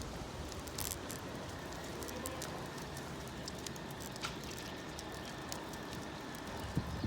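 Steady wind and riding noise from a bicycle ride, with scattered light ticks and crackles through it.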